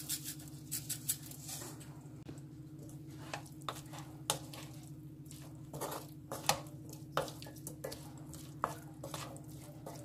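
Wooden spatula stirring and scraping stir-fried zucchini and clams around a nonstick wok, giving irregular clicks and scrapes over a steady low hum.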